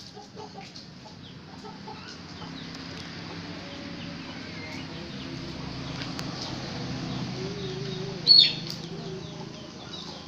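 Roosters clucking with short calls, and a sharp, high, loud squawk about eight seconds in. A low steady hum swells and fades through the middle.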